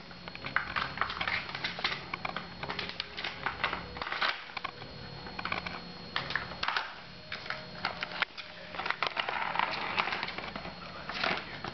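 Kittens batting the ball around a plastic cat play-circuit track: irregular clattering and rattling taps of plastic.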